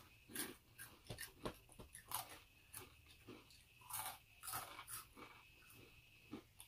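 People crunching and chewing a mix of Takis, Doritos and Hot Cheetos: irregular crisp crunches, about two a second.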